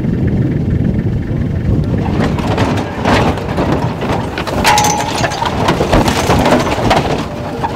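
Vehicle driving off-road, heard from inside the cab: a steady low engine and road rumble, with dense rattling and knocking from about two seconds in.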